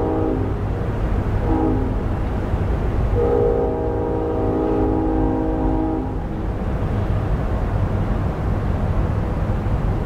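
Synthesized recreation of a distant Nathan P5 five-chime air horn, heard as a reverberant chord: a blast ending about half a second in, a short blast, then a long blast of about three seconds. A steady low rumble of background noise runs underneath.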